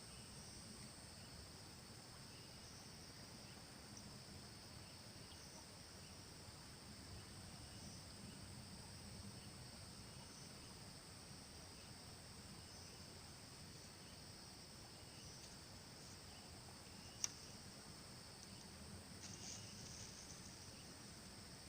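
Faint outdoor ambience dominated by a steady, high-pitched insect chorus, with a few brief chirps near the end. A single sharp click comes about seventeen seconds in.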